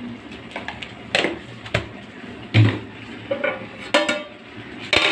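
Metal spoon knocking and scraping against an aluminium cooking pot as salt is stirred into the biryani liquid: several sharp clinks spread out, the loudest about halfway through.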